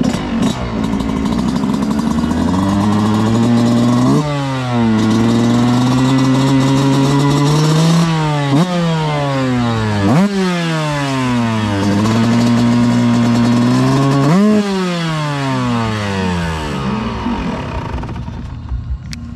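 125cc motocross bike engine running and being revved. The revs are held steady for stretches, then blipped sharply about five times, each blip falling back slowly, and the engine dies away near the end.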